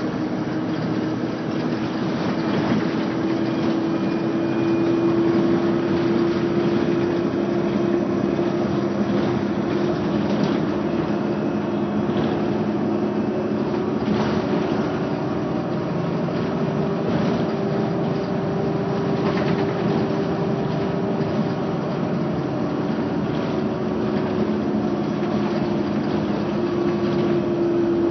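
Mercedes-Benz Citaro city bus heard from inside the passenger cabin while driving: a steady engine and drivetrain drone whose pitch slowly rises and falls, over road and rattle noise.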